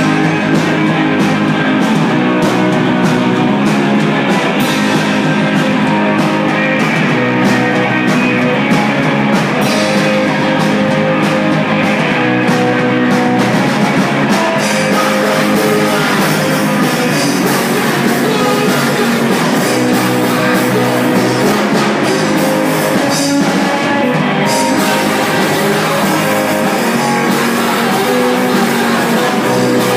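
Loud rock music with electric guitar and a singing voice, playing continuously.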